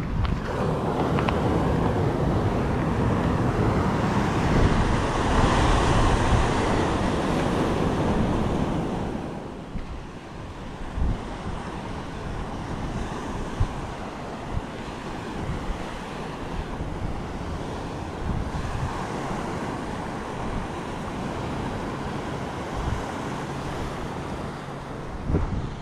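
Sea surf breaking and washing over a rocky shore, with wind buffeting the microphone. The surf is loud for the first nine seconds or so, then drops to a softer, steady wash.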